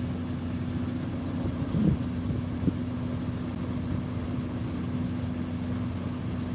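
Tow truck engine idling: a steady low hum, with a couple of brief clicks about two seconds in.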